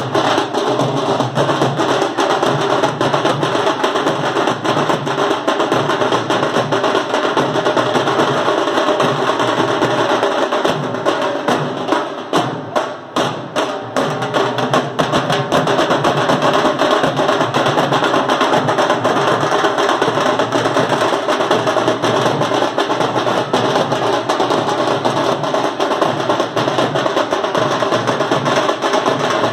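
Fast, dense drumming on hand-carried drums beaten with sticks, keeping on without a break except for a brief thinning of the beat about twelve to fourteen seconds in.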